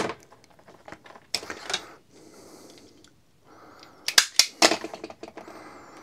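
Small side cutters snipping and stripping the insulation off thin red-and-black hookup wire: a few sharp clicks, the two loudest a little after four seconds in, with soft rustling of the wire being handled between them.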